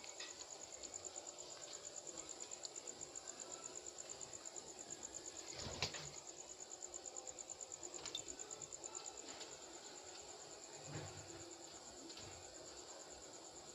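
Crickets chirping steadily in a high, rapidly pulsing trill, with a few sharp clicks, the loudest about six seconds in.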